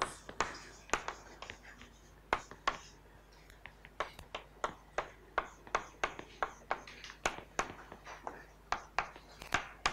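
Chalk writing on a blackboard: a steady run of sharp taps, two or three a second, with faint scratching between some of them.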